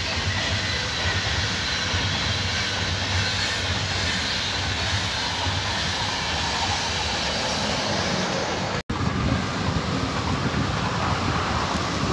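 Passenger trains rolling past on electrified double track: first an Intercity's coaches and red electric locomotive with a steady rolling rumble, then, after a brief dropout about two-thirds of the way in, a red S-Bahn electric multiple unit passing close with a heavier rumble.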